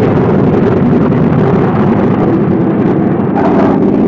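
Loud, steady drone of a piston aircraft engine running.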